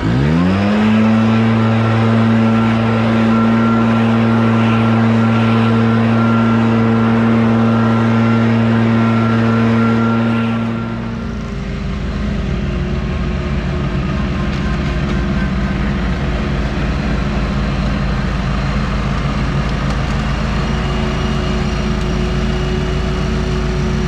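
Backpack leaf blower engine revving up to full throttle within about a second and running at a steady high pitch for about ten seconds. It then gives way to a lower, rougher engine sound with more rumble.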